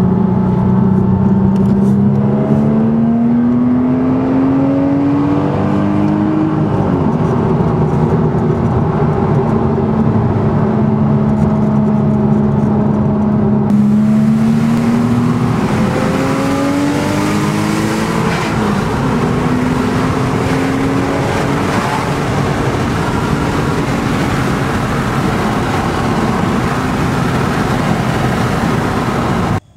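Porsche Cayman S flat-six engine with a custom exhaust pulling under load. The engine note climbs slowly, drops back and climbs again several times, and a rushing road and wind noise joins about halfway through.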